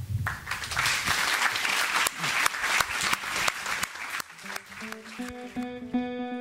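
Audience applauding, then plucked guitar music fading in about four seconds in as the applause dies away.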